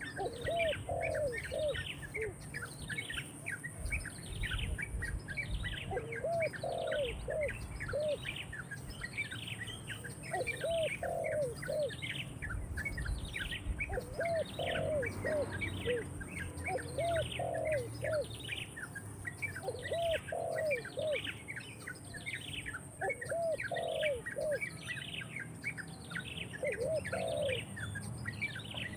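Birds calling: a steady series of short, high, downward-sliding chirps about twice a second, with a lower phrase of three or four rising-and-falling notes repeated every three to four seconds.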